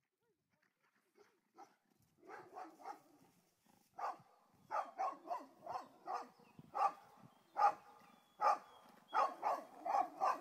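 Dog barking repeatedly in short barks, about two a second, faint at first and growing louder over the first few seconds.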